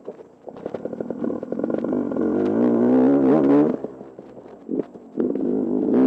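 A 2016 Sherco enduro motorcycle's engine on a dirt trail. It pulls up from low revs with a slow, even beat and revs harder to a peak about three and a half seconds in. The throttle then eases off for a second or so and opens up again near the end.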